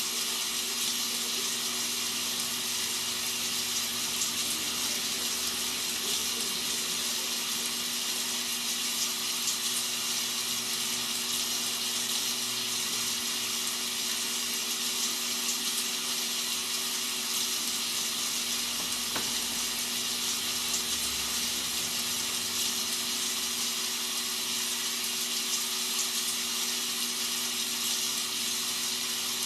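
Rain sound effect used as white noise: a steady, even hiss of rainfall, with a faint low steady hum beneath it.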